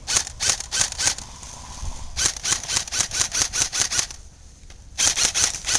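Airsoft guns firing in three runs of rapid, sharp clicking shots, with short gaps between them.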